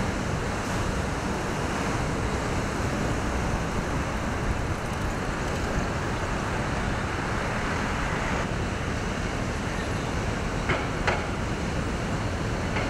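Steady city street traffic noise, an even, continuous wash of vehicles with no single one standing out. Two short knocks sound close together near the end.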